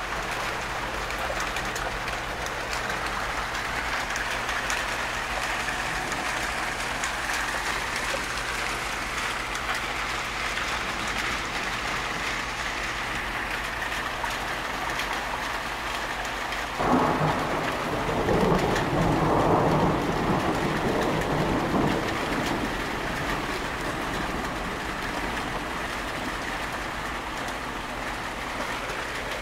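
Steady rain throughout. A clap of thunder breaks in suddenly a little past halfway and rumbles for about five seconds before fading back under the rain.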